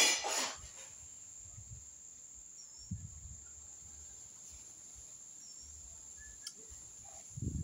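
Rural outdoor ambience: a steady, high-pitched insect drone with a couple of brief bird chirps. A short noise at the very start is the loudest sound, and a few low bumps come about three seconds in and near the end.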